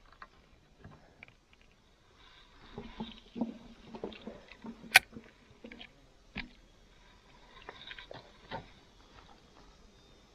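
Handling noise from a spinning rod and reel: rustling and scattered light knocks, with one sharp click about five seconds in.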